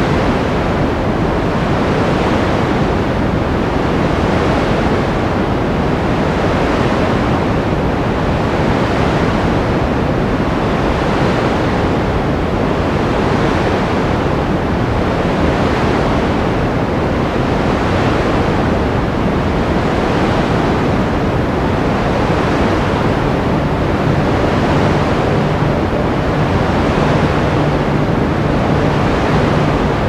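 Sea surf washing on the shore: a steady rush that swells gently about every two seconds. A low steady hum joins in near the end.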